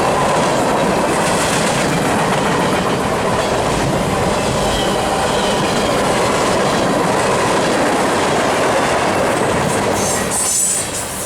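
Freight cars of a long manifest train rolling past, steel wheels running on the rail in a steady, loud rush of noise. The level drops off suddenly about ten and a half seconds in.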